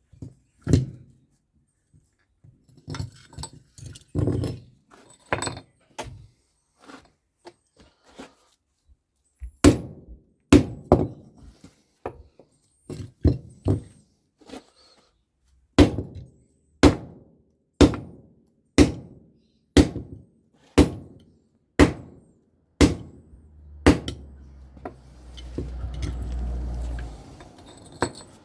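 Hammer blows on a microwave oven transformer to knock the copper windings out rather than cutting them. A few scattered strikes, then a steady run of single blows about one a second, each ringing briefly. Near the end comes a few seconds of low rumbling noise.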